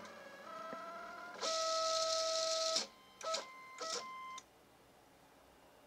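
Delta 3D printer's stepper motors whining in steady pitches that change with each move, loudest during a move of about a second and a half, then two short moves and a last steady tone. It goes quiet about four and a half seconds in.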